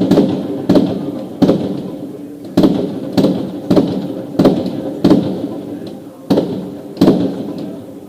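Fireworks bursting in a steady series, about eleven sharp bangs roughly one every 0.7 seconds, each dying away before the next.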